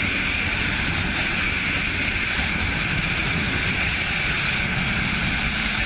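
Steady, loud rushing of wind during a skydive.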